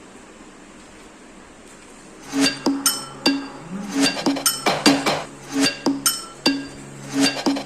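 Faint hiss, then background music starts about two seconds in: bright, ringing, bell-like notes struck in a quick rhythm over a held low tone.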